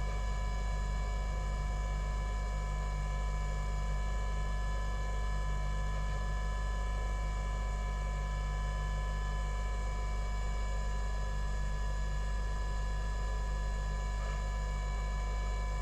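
Steady electrical mains hum and buzz with a high whine, unchanging throughout.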